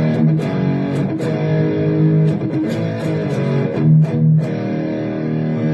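Electric guitar played through a Donner Arena2000 multi-effects pedal with its Dynacomp compressor model selected: sustained notes and chords that change every second or so, stopping abruptly at the end.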